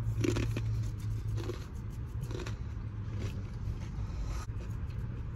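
Someone chewing a snack, with a few soft crunches spaced about a second apart, over a low steady hum.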